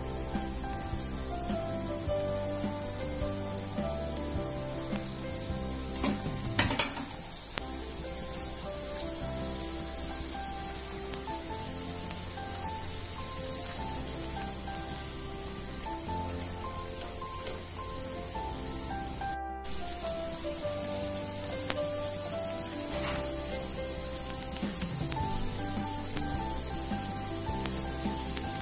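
Sweet mini pooris deep-frying in hot oil, a steady sizzling, with soft background music of held notes playing underneath. The sound drops out briefly about two-thirds of the way through.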